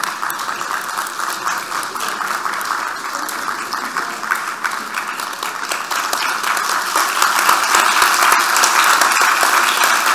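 Audience applauding, a dense patter of many hands clapping that grows louder about two-thirds of the way through.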